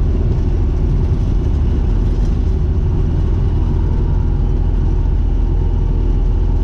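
Tecnam light aircraft's piston engine and propeller running at low power, a steady drone heard from inside the cockpit as the plane rolls along the runway.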